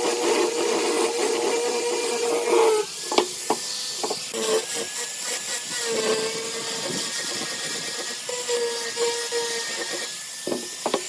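Electric power tool working wood: a steady high whine for the first few seconds, a couple of sharp knocks, then the whine starting and stopping in short stretches.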